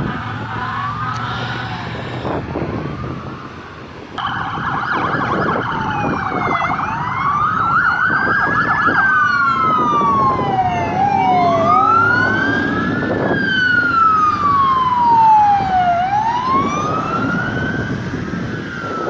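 Emergency vehicle siren passing: faint wailing at first, then from about four seconds in a loud siren that gives a brief fast yelp and goes into slow rising and falling wails, fading away near the end.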